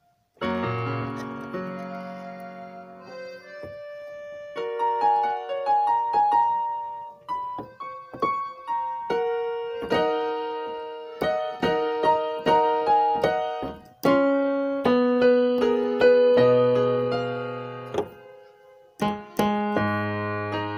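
Background piano music: a melody of struck, fading notes over chords.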